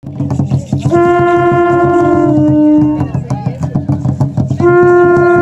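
Conch shell trumpet blown in two long blasts, about a second in and again near the end, each a held note that drops a little in pitch before it stops. Rattles click and a low rumble of percussion runs underneath.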